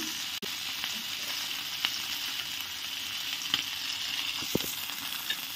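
Masala-coated sardines shallow-frying in oil on a tawa, sizzling steadily with a few small pops as they fry crisp. There is one brief knock near the end.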